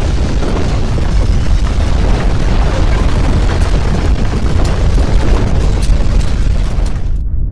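A loud, deep rumbling roar that starts abruptly, with scattered crackles over it. Near the end the crackling high end drops out, leaving only the low rumble.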